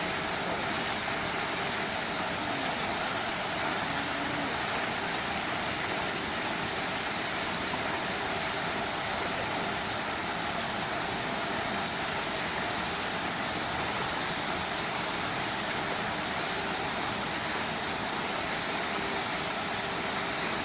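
Steady outdoor background noise with a constant high-pitched hiss, unchanging throughout.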